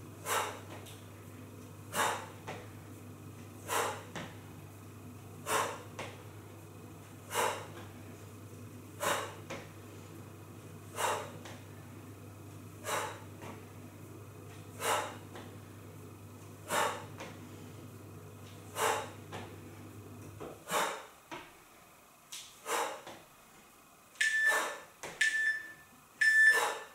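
A woman's sharp exhalations, one about every two seconds, each on the kick of a squat with a fitness band around the legs. A low steady hum stops about two-thirds through, and near the end an interval timer gives three short beeps as the work period ends.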